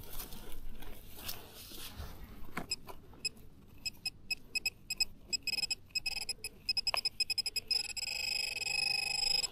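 Metal-detecting pinpointer beeping in rapid short high pulses, then going over to a steady continuous tone for the last second and a half or so, the sign that it is sitting right on a metal target in the hole. Before the beeping come light scrapes and clicks of digging in the soil.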